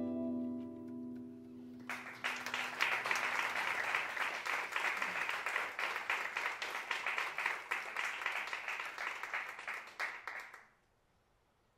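The final chord of a choro ensemble of flute, guitars and cavaquinho ringing out and fading, then an audience applauding for about nine seconds; the applause cuts off suddenly near the end.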